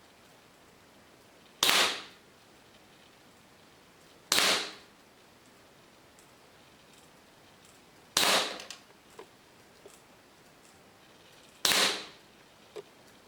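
WE P38 blowback airsoft pistol firing four single shots a few seconds apart, each a sharp crack that dies away quickly, with a few faint ticks after the last two.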